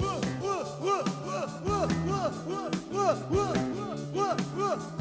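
Live new-wave rock band playing an instrumental passage: drums and bass under a keyboard line of quick, repeated swooping notes.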